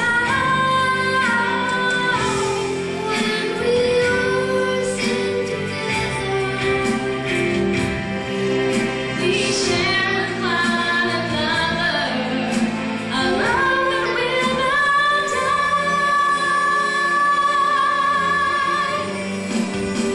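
Live group singing with a lead female voice over instrumental accompaniment: sustained sung notes that glide between pitches.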